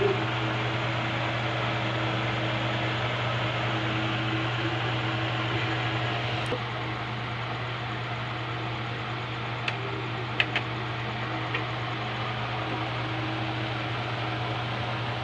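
A steady hum and hiss, slightly quieter after about six and a half seconds, with a few light clicks about ten seconds in as a fork knocks against the aluminium wok while lifting the noodles.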